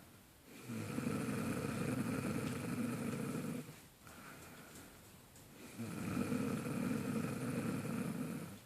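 A woman snoring in her sleep: two long snores of about three seconds each, with a quieter pause between them.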